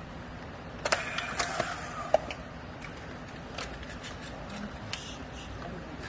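Handheld battery strapping tool clicking and snapping as it is released from a freshly sealed plastic baling strap. The sharp clacks come about a second in, with a few fainter ticks later, over a steady low hum.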